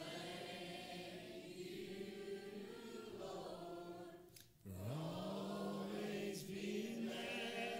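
Gospel song played by acoustic guitar, piano and upright bass, with long held sung notes. About halfway through, a note slides up from low and is held to the end.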